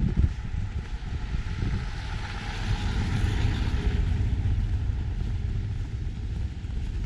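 Street ambience on a snowy road: a low, uneven wind rumble on the microphone, with a car passing and its sound swelling and fading midway.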